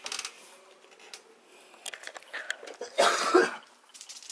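A short, rough cough about three seconds in, over scattered light taps and scuffs of paws and claws on a wooden floor.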